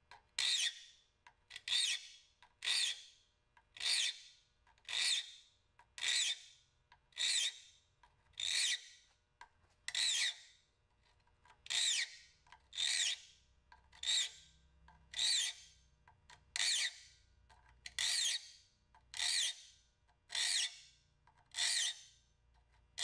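Triangular file rasping across a rip-cut hand saw's steel teeth in even strokes, about one a second, with a short pause between each. Each stroke sharpens a tooth whose top was flattened by jointing back to a point.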